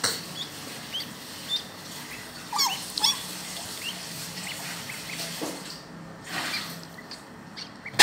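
Newly hatched ducklings peeping: scattered short high peeps, with two louder calls falling steeply in pitch about two and a half and three seconds in.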